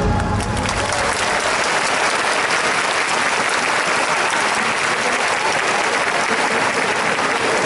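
A large crowd in stadium stands applauding steadily, as the marching band's final note dies away in the first moment.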